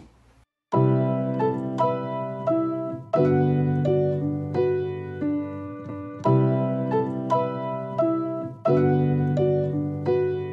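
Background music on piano starting under a second in: a new chord struck about every two and a half seconds, with single notes in between.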